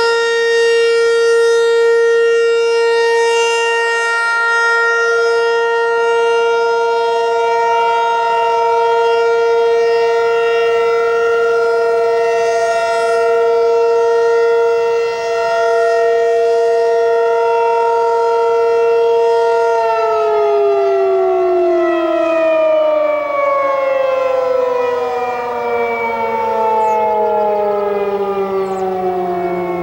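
Federal Signal 508 electromechanical tornado siren sounding a steady alert tone, then switching off about 20 seconds in and winding down, its pitch falling steadily as the rotor slows: the end of a 3-minute steady alert.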